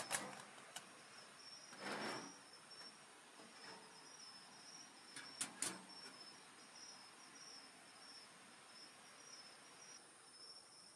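Summer-night insects chirping in a steady, pulsing high trill, with a few sharp pops from a wood campfire crackling, the loudest pair about five and a half seconds in. A short, soft rush of noise comes about two seconds in.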